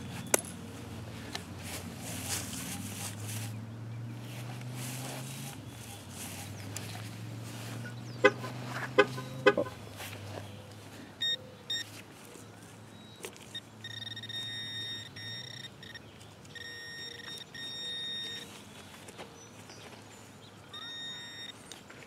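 Digging in turf with a T-handle shovel, with a few sharp knocks about eight to nine and a half seconds in. From about eleven seconds a car beeps: groups of short, steady high-pitched beeps repeating until the end.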